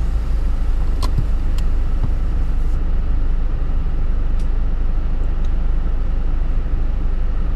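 Car engine running steadily, heard from inside the cabin as a low rumble, with a couple of faint clicks about a second in.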